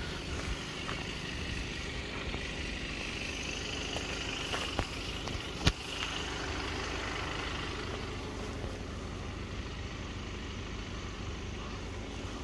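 Steady low rumble of an idling engine, with one sharp click a little before the middle.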